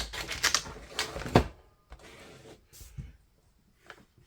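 Packaging and parts of a smart dimmer switch kit being handled: a second or so of rustling and rattling with a sharp knock, then a few faint clicks.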